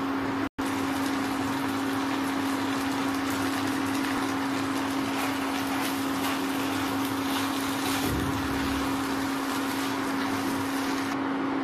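Steady electrical hum with a fan-like hiss from an induction cooktop running under a pan, and the light scraping of a silicone spatula stirring vermicelli. The sound drops out for a split second about half a second in.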